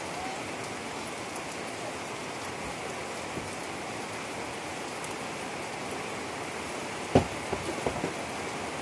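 Heavy rain falling steadily on foliage and wet ground, an even hiss. About seven seconds in, one sharp knock followed by a few softer ones within a second.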